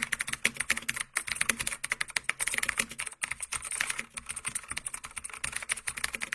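Rapid typing on a keyboard: a fast, uneven run of clicking keystrokes, several a second, that stops abruptly near the end.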